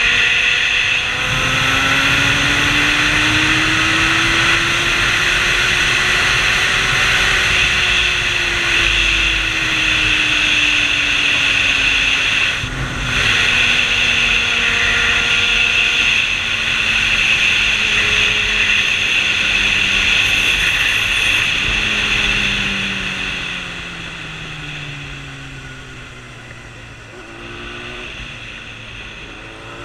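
Motorcycle engine under way with a steady rush of wind past the microphone. The engine note climbs over the first several seconds, then falls slowly. It jumps up again about two-thirds of the way through and falls away. The whole sound eases off and gets quieter in the last several seconds as the bike slows, with a few brief rises in engine pitch.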